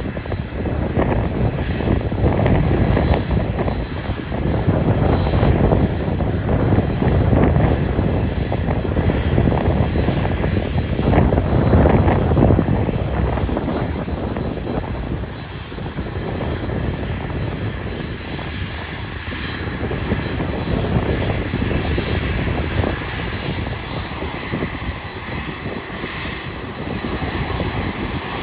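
Airliner jet engines rumbling as a plane passes, growing to their loudest about twelve seconds in and then easing off, with a faint steady high whine above the rumble. Wind buffets the microphone throughout.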